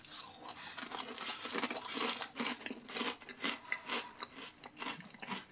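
Someone chewing crunchy potato crisps (Lorenz Crunchips with one ridged and one X-cut side), an irregular run of crisp crunches.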